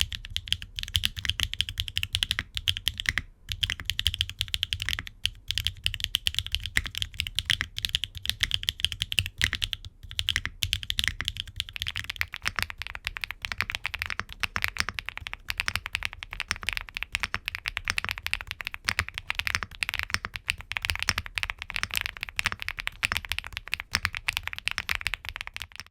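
Continuous rapid typing on a custom 65% mechanical keyboard (Qwertykeys Neo65) fitted with HMX Aster linear switches, an aluminium plate and case, gasket mount, no foam and ABS double-shot Cherry-profile keycaps: a dense stream of key clicks over a low bottoming-out thud.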